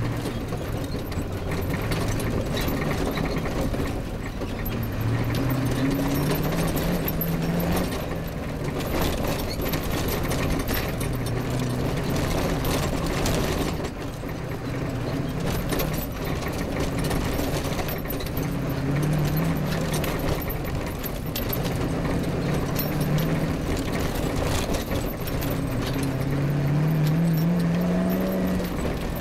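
Off-road rally vehicle's engine heard from on board, its pitch climbing several times as it accelerates up through the gears over rough grass, with a steady run of knocks and rattles from the bumpy ground.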